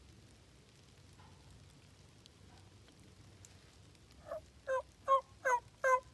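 A series of turkey yelps: about five evenly spaced yelps, roughly two and a half a second, starting about four seconds in and growing louder.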